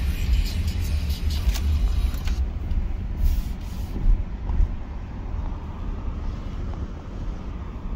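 Low rumble of a truck driving slowly, heard from inside the cab: engine and road noise. The sound changes abruptly about two seconds in, losing its hiss.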